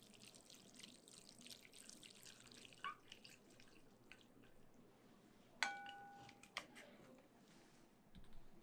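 Wooden chopsticks tossing sauced noodles in a glass bowl: faint wet squelching and clicking, then about halfway through a chopstick strikes the glass and the bowl rings briefly.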